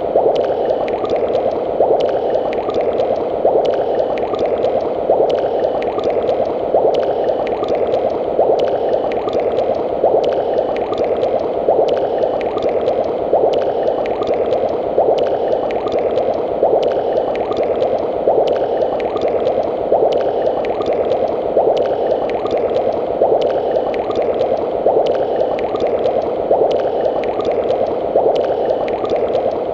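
Bubbling cauldron sound effect: thick liquid boiling and gurgling steadily, with bubbles popping at an even, repeating pace.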